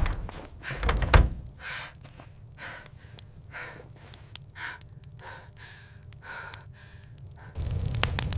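Two heavy thuds, then a series of breathy gasps, about one a second. Near the end a steady hum with crackling cuts in suddenly.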